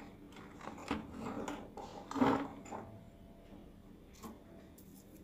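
Scattered light knocks and clicks of handling on a workbench, the loudest about two seconds in, then quieter.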